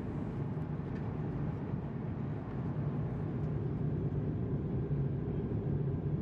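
Steady low drone of airliner cabin noise in flight, inside an Airbus A220-300.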